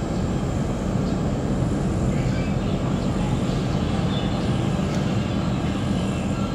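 Ship's engine running with a steady low rumble.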